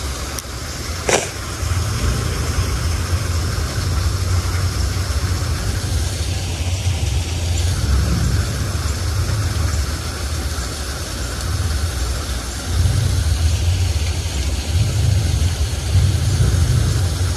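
Steady rush of water at a small spillway, under an uneven low rumble, with one sharp click about a second in.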